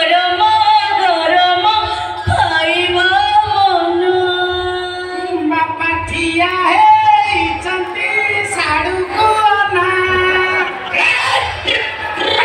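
A woman singing a song with long held, wavering notes over musical accompaniment.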